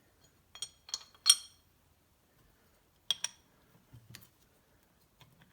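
Metal engine parts clinking against each other while being handled: three sharp, ringing clinks in the first second and a half, two more about three seconds in, then a few faint knocks.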